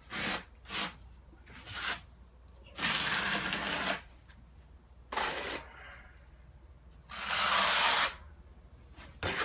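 Steel trowel scraping thinset tile mortar as it is spread: a few short strokes, then longer strokes of about a second each.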